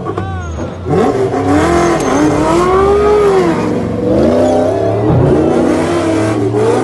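Rally raid 4x4 car engine revving hard as the car passes close, its pitch climbing and dropping over and over with the throttle and gear changes.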